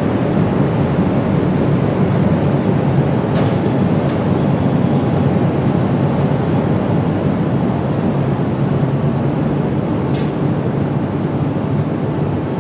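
Steady low rumble of city street noise with a faint hum running under it.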